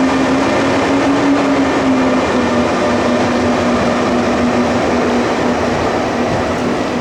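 ÖBB Taurus electric locomotive running with a steady whining tone from its traction inverters and motors over the rumble of the moving train. The tone rises slightly about a second in, then settles into an even pulsing from about two seconds on.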